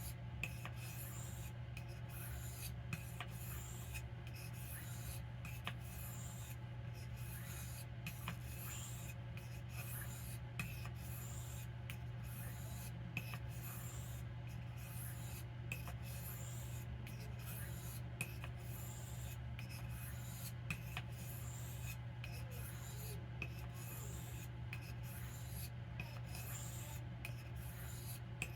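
Knife blade stroked again and again across a soft Arkansas whetstone: a steady run of scraping honing strokes with brief breaks between them, over a faint low hum.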